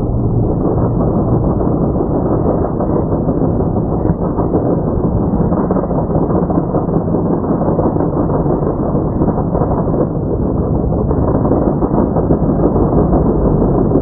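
Mega mud truck's engine running hard at high revs, loud and steady.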